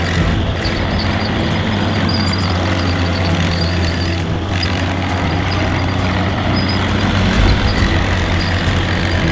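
Fiat-Allis 14B crawler dozer's diesel engine running steadily under load, with a faint high squeal coming and going.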